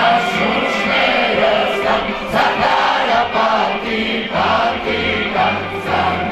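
A group of teenage students singing a song together, boys' and girls' voices in chorus.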